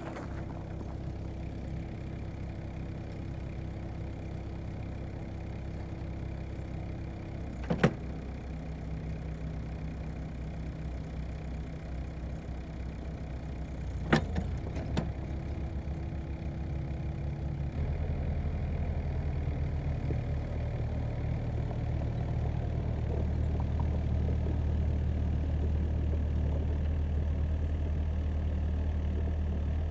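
Mini-excavator's diesel engine idling, with two sharp knocks about eight and fourteen seconds in. About eighteen seconds in the engine speed rises and it runs steadily louder at higher throttle.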